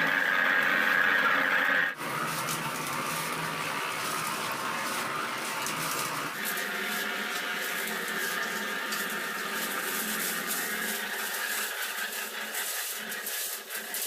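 Drum concrete mixer running: a high steady squeal for about the first two seconds, then steadier mechanical noise with scattered light clatter.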